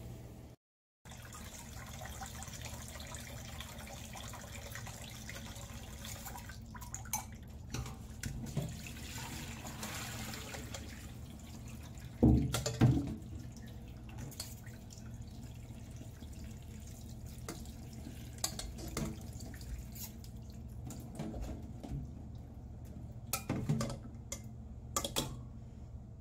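Cooking water from boiled baby potatoes splashing and dripping into a stainless steel sink as they are drained in a mesh strainer, with knocks of the metal pot and strainer. Two loud clanks come about halfway through.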